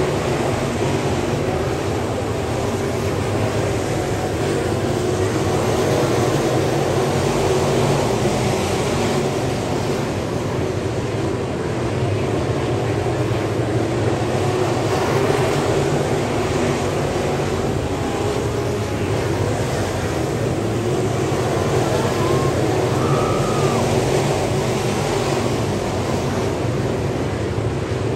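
Several dirt late model race cars with GM 602 crate V8 engines running around the dirt oval, a steady mixed engine drone with no single car standing out.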